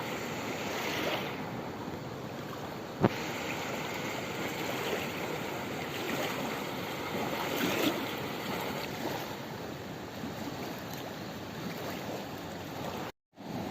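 Steady rushing water with some wind on the microphone, and one sharp knock about three seconds in.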